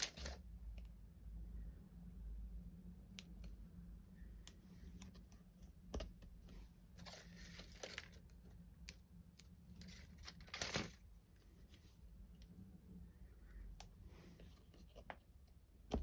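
Glue dots being peeled off their paper backing roll with a pointed craft pick: faint scattered rustles and small ticks, with louder short peeling rasps about seven and eleven seconds in.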